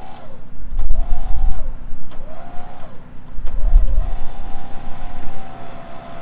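Warn Zeon 10-S electric winch motor whining: a few short bursts that rise and fall in pitch, about one a second, as the winch is bumped on and off, then a steady whine from about halfway as it takes up the pull. A heavy low rumble swells underneath at times.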